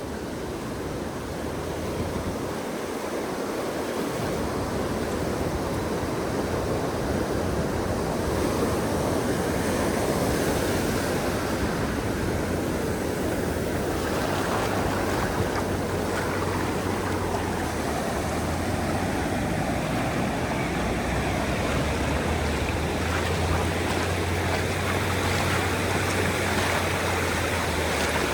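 Ocean waves breaking and washing onto a sandy beach in a continuous surf wash, swelling and easing, with some wind on the microphone adding a low rumble in the second half.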